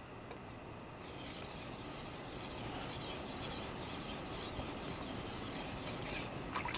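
Gyuto kitchen knife edge being stroked back and forth on a wet 3000-grit Suehiro whetstone, a steady gritty rubbing that starts about a second in and stops shortly before the end. This is a fine-stone polishing pass on the secondary bevel, raising only a very small burr.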